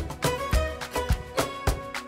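Background music with a steady, quick beat of percussive hits and pitched notes.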